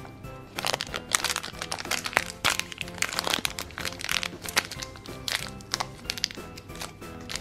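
Plastic toy blind bag crinkling and crackling as fingers open it and pull out a small plastic figure, over background music.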